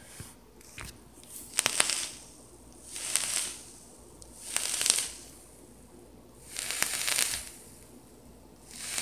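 Rebuildable vape atomizer with a low-resistance 24-gauge contact coil being fired and drawn on: crackling, sizzling hiss in five short bursts about every second and a half.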